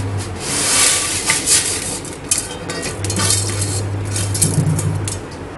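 Dry sago pearls poured from one steel plate onto another, a dense rushing patter for about a second, followed by scattered clinks and taps of steel plates being handled.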